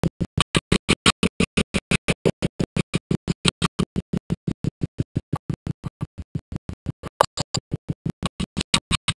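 Stuttering, gated sound cut into short pulses, about seven a second with silence between them, heard as an electronic music effect.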